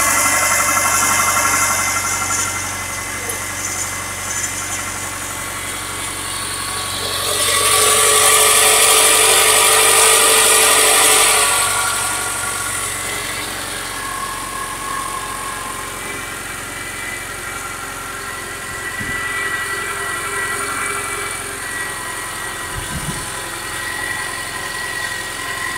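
Subaru Forester's EJ251 2.5-litre flat-four engine running from a cold start, with a knock the owner is recording. It grows louder for about four seconds starting around seven seconds in, then settles back.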